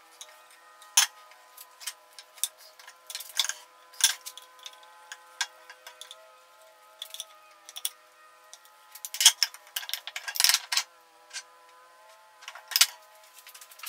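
A Hydro-Gear transaxle's metal housing and hand tools being handled on a workbench during disassembly: irregular clicks and knocks of metal on metal, with a louder cluster of knocks about nine to eleven seconds in.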